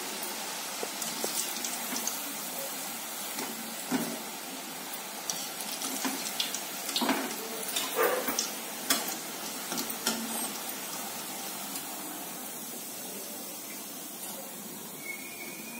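Garelu (urad-and-mixed-dal fritters) deep-frying in hot oil in a steel kadai, a steady sizzle. Around the middle come several sharp metal clinks and scrapes of a wire skimmer against the pan as the fritters are scooped out. The sizzle eases a little near the end.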